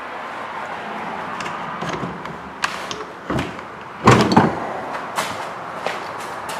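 A few scattered knocks and clicks, then a louder clatter lasting about half a second around four seconds in, over a steady background hiss.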